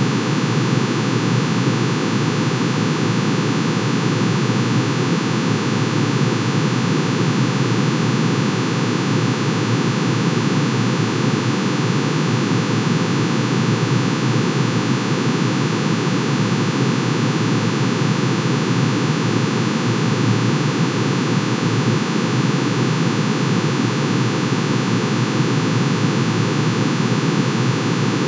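Synthesized sonification of manganese's atomic emission spectrum: many sine tones, one for each spectral line, summed into a dense, unchanging noisy drone.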